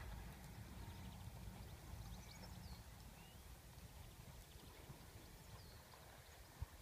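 Quiet outdoor ambience: a low wind rumble that fades after about three seconds, a few faint bird chirps, and soft, muffled hoofbeats of a horse trotting on a rubber-chip arena surface. A single low thump comes near the end.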